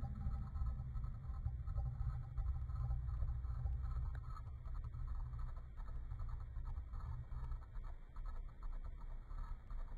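Low, fluttering rumble with faint scratchy ticks: room sound slowed down and deepened in slow-motion playback, with no bark.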